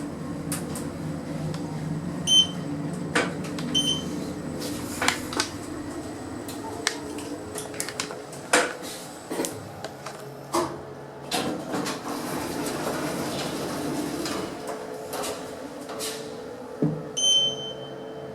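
Schindler 3300 lift running with a steady low hum, with scattered clicks and knocks. Its electronic signal gives two short high beeps early on and one longer beep of about a second near the end.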